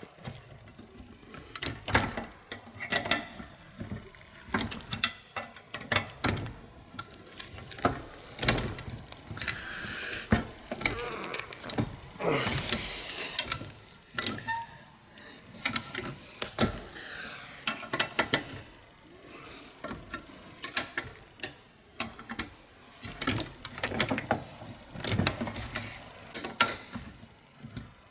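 Metal hand tools clinking and clattering as a toolbox is rummaged through for a spanner, with many sharp clicks and knocks. A short stretch of steadier scraping hiss comes about halfway through.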